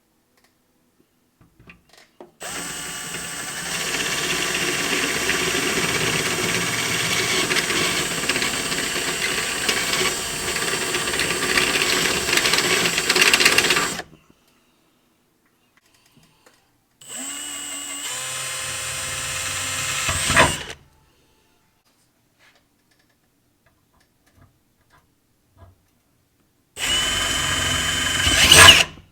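Milwaukee M18 Fuel cordless hammer drill driver drilling in three runs: a long one of about eleven seconds, then two shorter ones of a few seconds each. Each run ends in a brief louder burst just before the motor stops.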